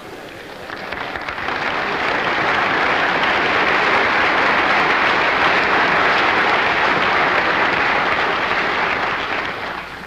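Lecture-hall audience applauding, building up over the first couple of seconds and fading out near the end.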